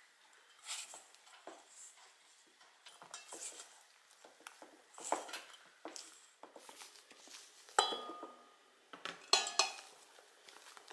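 Wooden spatula stirring and scraping thick batter in a stainless steel mixing bowl, with irregular taps against the metal. About eight seconds in the bowl gives one sharp clink that rings on briefly, followed by a quick run of scraping strokes.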